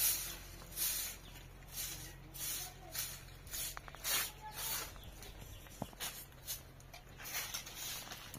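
Broom sweeping: a regular run of short, brushy swishes, about one and a half a second.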